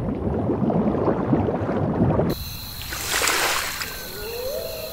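Underwater bubbling and gurgling water sound effect that cuts off abruptly about two seconds in. It gives way to a short hiss, regular high chirping pulses, and a whistle-like tone that rises and then holds near the end.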